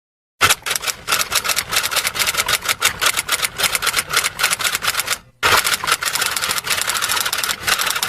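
Typing sound effect: a fast, dense clatter of keystrokes, starting about half a second in, breaking off briefly about five seconds in, then resuming.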